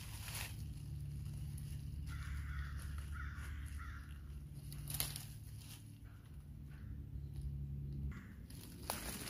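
A crow cawing a few harsh times about two to four seconds in, over a low steady hum, with a few sharp handling knocks.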